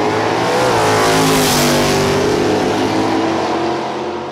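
Dragster engine running loud and steady, its pitch dipping briefly about half a second in, then beginning to fade near the end.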